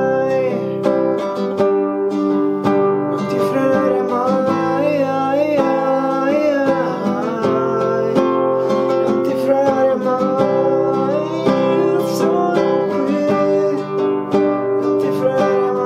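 Nylon-string classical guitar strummed through a C–G–Am–F chord progression, with a man singing along.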